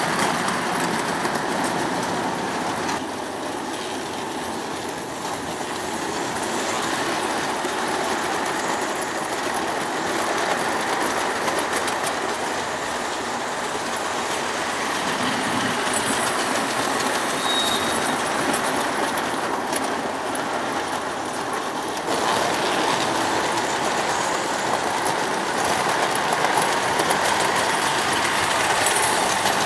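O gauge model trains running on the layout track: a steady rolling noise of coach wheels on the rails. It dips a little a few seconds in and steps up louder about 22 seconds in.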